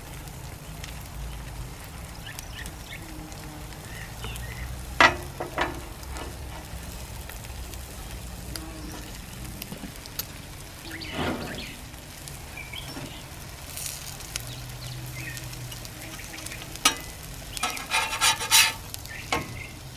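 Bacon and meatloaf slices sizzling on a Blackstone flat-top griddle. A few sharp clicks and scrapes, most of them near the end, as a metal spatula works on the steel plate.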